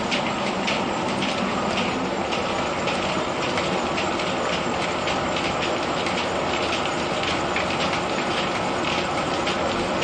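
Threshing machine in a mill (방앗간) running: a steady, dense mechanical clatter with fast rattling ticks over it.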